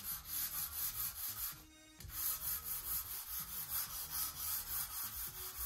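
Sanding block with sandpaper rubbed back and forth over a balsa wood sheet, a few brisk strokes a second: pre-sanding a glued-up balsa wing-skin panel before it is sheeted onto the wing. The strokes break off for under half a second about a second and a half in.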